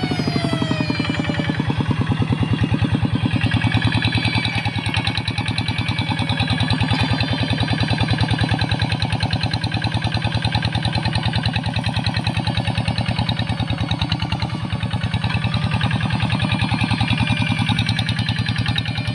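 Single-cylinder diesel engine of a two-wheel hand tractor running under load as it pulls a plough through dry, weedy paddy soil, with a steady fast firing beat. A falling tone fades out at the start.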